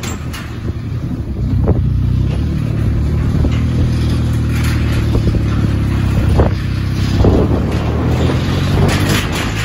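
Motorcycle engine running steadily at low speed, with wind noise on the microphone. Oncoming motorcycles pass close by about halfway through.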